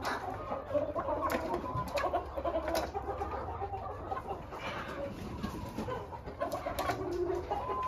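A flock of chickens clucking in short, repeated calls, with a few sharp clicks among them.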